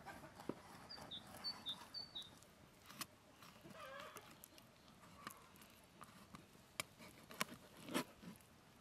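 Kitchen knife slicing raw chicken breast on a wooden cutting board, the blade striking the board in several sharp taps, the loudest near the end. A small bird chirps a quick run of short high notes about a second in.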